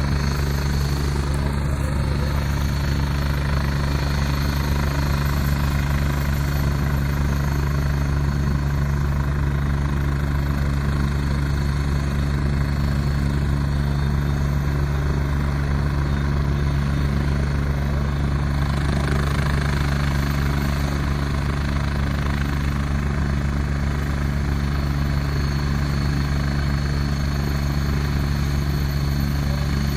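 Helicopter running at a steady pitch: a constant low rotor-and-engine drone with a thin steady high tone above it.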